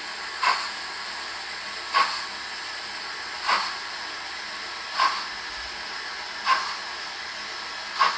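Steam-locomotive sound from a sound-fitted Dapol model of the 0-4-0 saddle tank 'Invincible': slow, even exhaust chuffs, one about every second and a half, over a steady hiss of steam.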